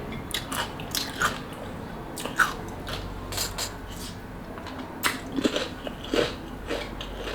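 Close-up eating sounds: a person biting and chewing a chamoy pickle, with a dozen or so short, irregular crunches.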